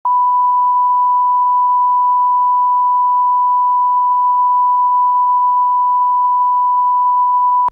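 Line-up reference tone played with SMPTE colour bars: one loud, steady pure tone held without change, cutting off suddenly at the end.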